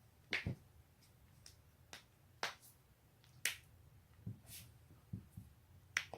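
Joints being cracked: a run of sharp pops and clicks about a second apart, some louder than others.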